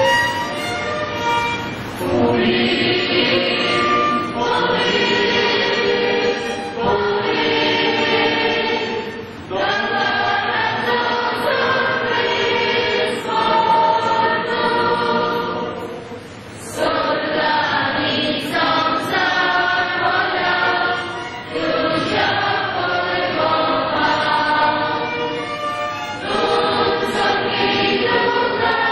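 A church choir singing a hymn in sustained phrases separated by short pauses, with a longer break about two-thirds of the way through.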